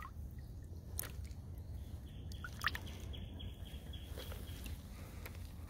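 Quiet riverside outdoor ambience: a steady low rumble with scattered small clicks and a few short bird chirps.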